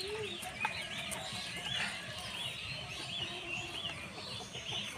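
Birds chirping: many short high chirps, overlapping and repeating throughout.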